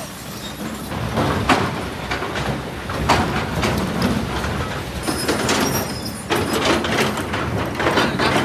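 Kobelco SK200 excavator working in rock and sand: the engine runs under load while stones scrape and tumble, with sharp knocks about every second or two.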